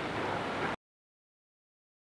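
Steady background hiss of an old analogue recording that cuts off abruptly under a second in, leaving dead silence.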